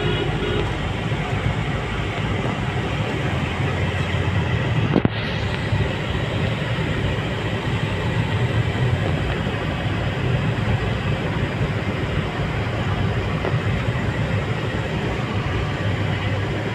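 Engine and road noise inside a moving vehicle's cabin: a steady low rumble, with a single sharp knock about five seconds in.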